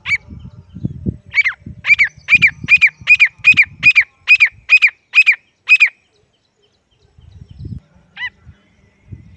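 Young grey francolin (desi teetar) calling: a loud series of about a dozen high, arched whistled notes, roughly two a second, followed a couple of seconds later by one more note. A low rumbling noise runs under the first few calls.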